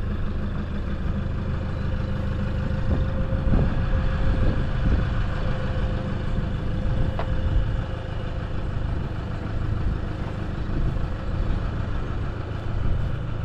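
A vehicle engine running at low speed while reversing slowly up to a trailer to hitch it, with a faint steady whine for several seconds through the middle and a single click about seven seconds in.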